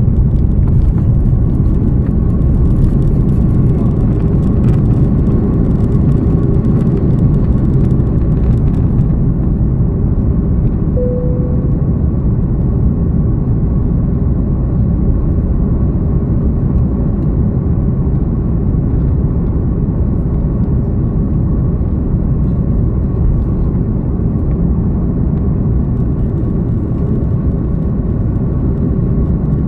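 Steady low rumble of a vehicle in motion, with a brief faint tone about eleven seconds in.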